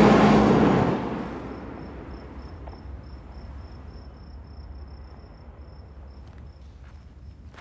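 A bus passes close by, its engine and tyres loud at first and fading away within the first second or so. Then crickets chirp in a steady high run of about four chirps a second.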